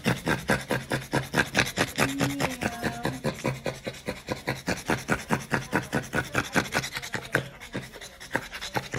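French bulldog panting fast and steadily, about four breaths a second, as a dam close to whelping in pre-labour.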